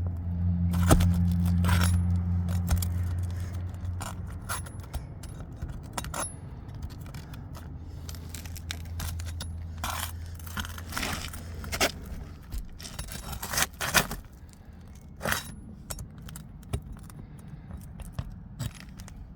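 Metal pry bar scraping and clicking against asphalt shingles and roofing nails as a nail is worked loose, in short irregular strokes. A low steady hum sounds through the first few seconds.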